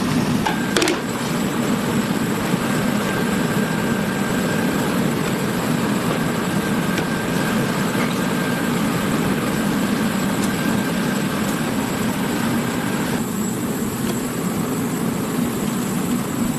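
Steady mechanical hum, with a thin whine that stops about thirteen seconds in.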